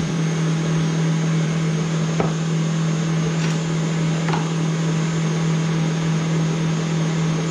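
Stand mixer motor running steadily, whipping heavy cream into whipped cream. A few light clicks of metal utensils set down on a wooden cutting board come around the middle.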